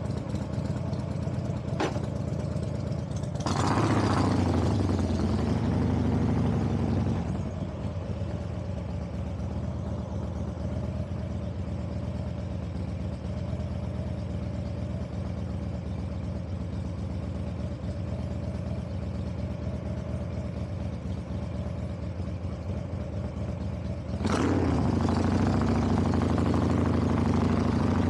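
Motor vehicle engine running steadily on the move. It gets louder twice, from about three and a half to seven seconds in and again from about 24 seconds in, as it pulls harder.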